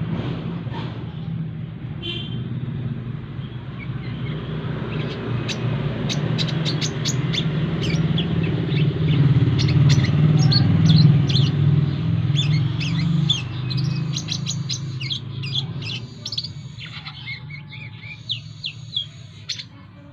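Brown-throated sunbird chirping and twittering in quick, high notes from about five seconds in. Beneath it runs a steady rumble of road traffic, loudest midway.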